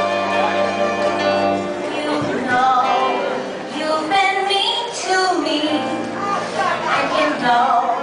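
Live big band holding a sustained chord, then a singer's voice comes in over the band about two seconds in, singing a melody with the band accompanying.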